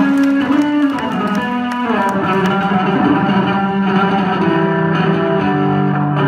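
Yamaha electric bass guitar played solo through an amplifier: a run of ringing notes and chords that change pitch, with sharp plucked attacks in the first couple of seconds giving way to longer held notes.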